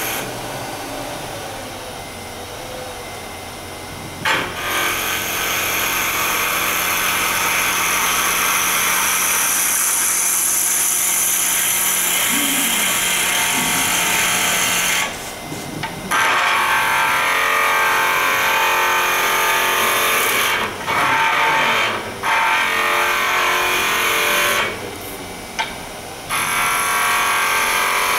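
Wood lathe turning a wooden spindle while a gouge cuts it: a loud hiss of the cut from about four seconds in, broken by a few short pauses. During the pauses, and in the quieter first few seconds, the lathe's steady motor hum is left.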